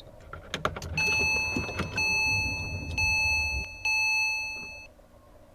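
Ignition switched on in a Porsche 997 Carrera 4S: a few clicks, then the instrument cluster's warning chime sounds four times about a second apart, over a low hum that cuts off about three and a half seconds in.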